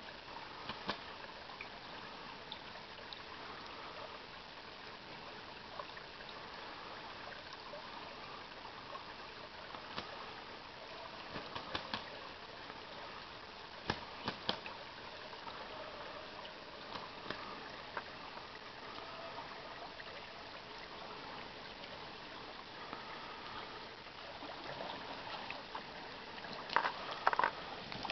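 Shallow creek trickling steadily over a gravel riffle, with scattered short sharp clicks and a burst of louder sharp sounds near the end.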